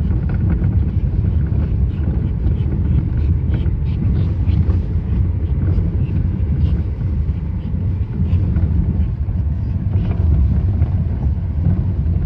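Lada Vesta SW Cross suspension knocking while the car is driven: scattered short knocks over a steady low road and running rumble. The knock is put down to the shock absorbers.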